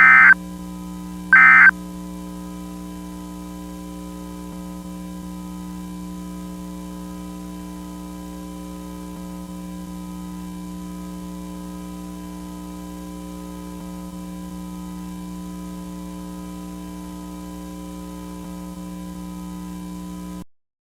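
The last two of three Emergency Alert System end-of-message data bursts: short, loud, shrill warbling chirps, one at the start and one about a second and a half in. They are followed by a steady low electronic hum with faint higher tones, which cuts off suddenly near the end.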